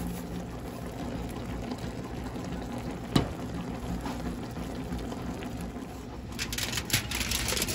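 Pot of green beans simmering on the stove with a steady bubbling, with one sharp knock about three seconds in. Near the end, aluminum foil crinkles as it is laid over the pot.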